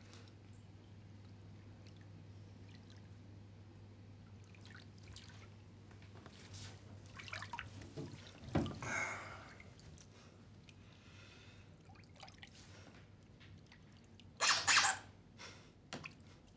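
Faint small water sounds over a low steady hum, then a girl coming up out of bathwater with a sharp, loud breath near the end after holding her breath under the surface.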